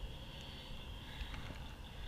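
Faint evening outdoor ambience: a steady high-pitched insect chorus over a low rumble of wind on the microphone, with a few faint ticks of handling.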